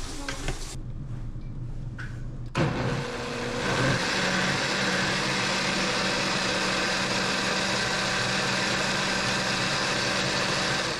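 Countertop blender running on cooked crabapples and apples, skins and seeds included, grinding them into a purée for apple butter. The motor starts about two and a half seconds in, settles into a steady whir and stops near the end.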